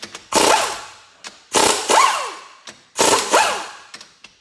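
Impact wrench hammering in three bursts of about a second each, its motor pitch rising and falling with each trigger pull, as it breaks loose the tightly torqued cylinder head bolts.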